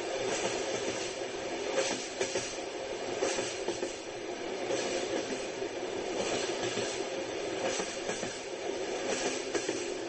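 Passenger train running steadily on the rails: a continuous rumble with its wheels clacking over rail joints every second or so.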